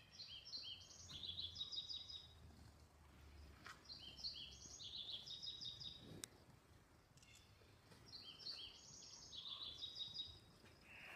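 A small songbird singing, faint: three bouts of quick, high, repeated chirping notes, each about two seconds long, a couple of seconds apart.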